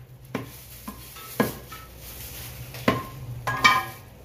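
A handful of separate knocks and clatters of a butcher's cleaver and beef on a wooden chopping block, about a second apart. The last few come close together near the end and ring briefly like metal.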